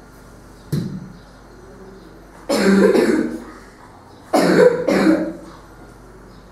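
A person coughing three times: one cough about two and a half seconds in, then two in quick succession near the end. A short tap comes about a second in, before the first cough.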